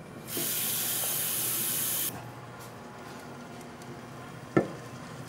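Warm tap water running hard into a measuring cup for about two seconds, a steady hiss that stops abruptly. A single short knock follows near the end.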